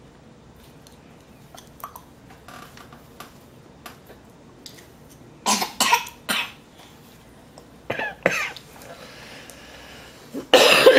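A toddler's short, breathy bursts of voice with a spoon in her mouth: three in quick succession about halfway through, two more a couple of seconds later, and a longer, louder one with some voice in it near the end. Faint small clicks come before them.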